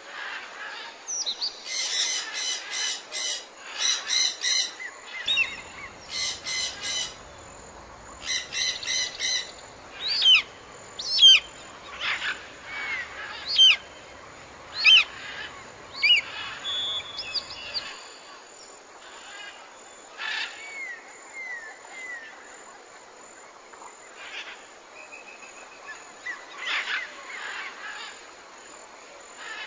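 Small birds calling and chirping: several rapid runs of short repeated notes in the first few seconds, then quick sweeping whistled notes scattered through the rest, over a faint steady background hiss.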